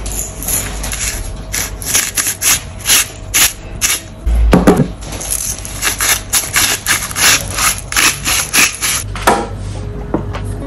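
Hand-twisted pepper mill grinding black peppercorns: a quick run of short grinding rasps, about three a second, with a heavier thump about halfway through, stopping about nine seconds in.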